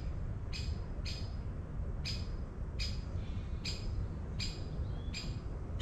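A woodpecker giving short, sharp scolding calls, about seven of them, one every half second to a second.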